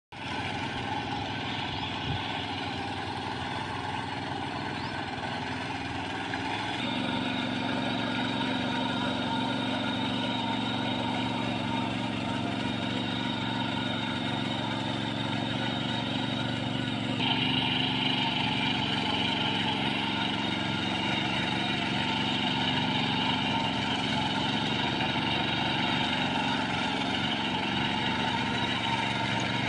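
Walk-behind power tiller's small engine running steadily while it tills a flooded paddy field. Twice the tone and loudness jump suddenly, about seven and seventeen seconds in.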